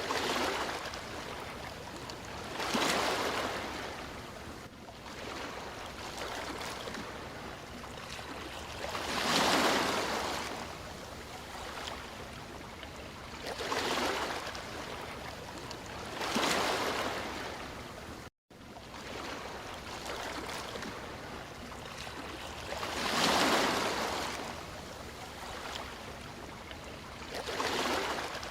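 Sea waves washing onto a shore, each one swelling into a hiss and fading back, about every four to six seconds. The sound cuts out completely for a split second about two-thirds of the way through.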